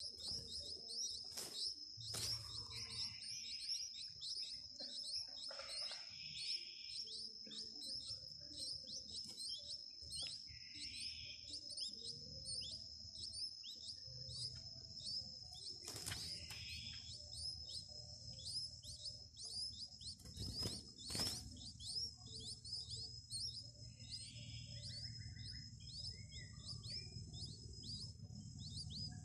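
Nestlings begging in the nest: rapid, repeated high chirps, each short and falling in pitch, about two to three a second, over a steady high-pitched tone.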